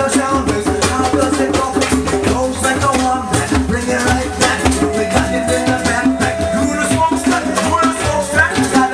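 Live acoustic band music: a harmonica played into a microphone over an acoustic guitar, with shaken hand percussion keeping a steady beat. One note is held for about two seconds near the middle.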